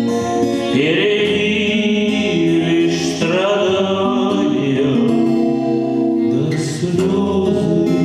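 A song with sung vocals over sustained accompaniment, the voice holding and sliding between long notes.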